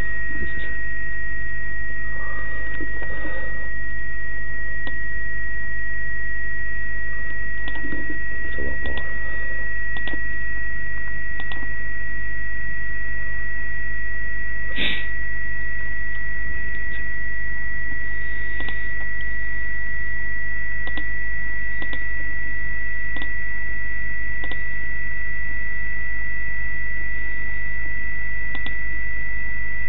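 A steady high-pitched tone over a continuous low hum, with faint scattered clicks and a short burst of hiss about 15 seconds in.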